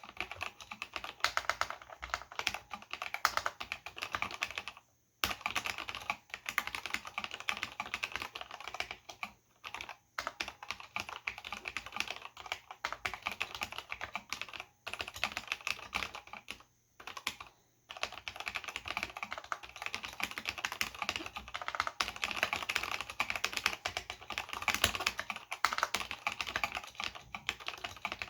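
Continuous typing on a Cherry G80-0499 keyboard with Cherry MX Black linear switches and ABS doubleshot keycaps: a rapid clatter of keystrokes, broken by brief pauses about five, ten, fifteen and seventeen seconds in.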